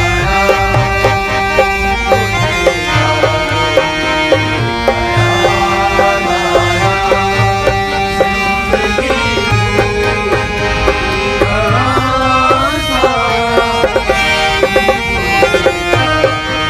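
Live Indian folk-style music. A man sings over a steady drum beat and sustained held chords.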